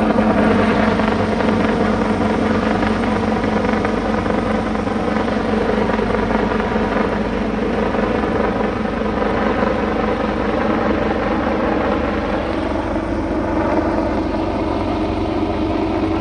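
Helicopter running steadily, a loud, even drone of rotor and engine whose pitch holds almost constant.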